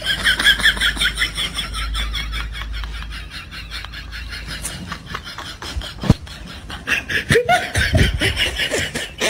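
High-pitched laughter in quick, rapidly repeated bursts, loudest in the first couple of seconds and again near the end.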